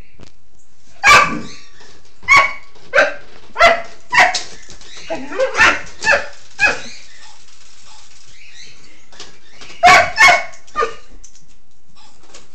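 A series of sharp dog barks: about nine in quick succession over the first seven seconds, then a pause, then three more near the end.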